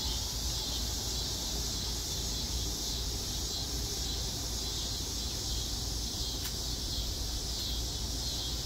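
Steady high-pitched chorus of insects, crickets or similar, running evenly over a low steady hum.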